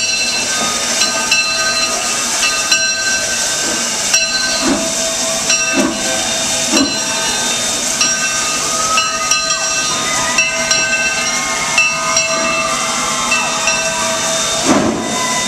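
Steam locomotive standing with steam hissing steadily, with short high tones repeating through the hiss.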